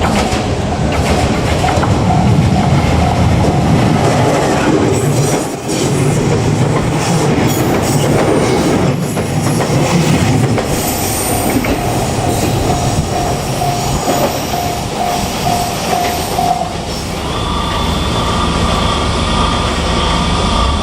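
Electric train running past over a level crossing, its wheels rumbling and clattering on the rails with some squeal. The crossing bell rings in a steady repeating rhythm until about four seconds before the end, when a different steady higher tone takes over.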